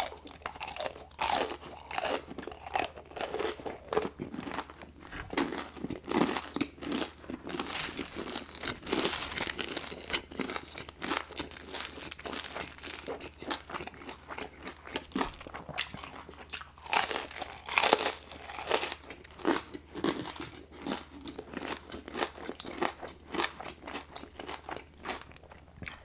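Close-miked crunching and chewing of a crispy fried chicken finger, then french fries. Many sharp crackles come from the breaded crust between wetter chewing sounds, with the loudest crunches about two-thirds of the way through.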